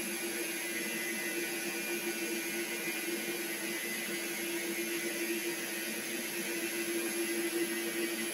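Metal lathe running with its spindle turning steadily while an insert turning tool takes a cut along a tapered metal part, a steady hum with a constant tone over even machine noise.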